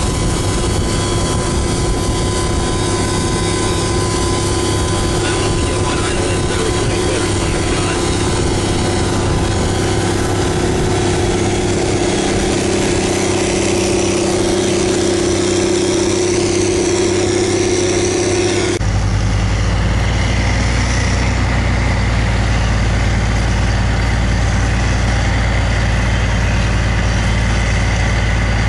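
CAT track tractor's diesel engine running steadily under load as it pulls a fertilizer applicator toolbar through the field, with a steady whine-like tone over the engine. About two-thirds of the way through the sound changes abruptly to a steadier low hum.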